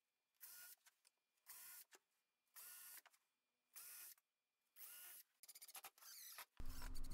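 Cordless screwdriver or drill driving screws through a piano hinge, its motor whining in five short bursts about a second apart. A run of rapid clicks follows, and a louder, noisier sound starts near the end.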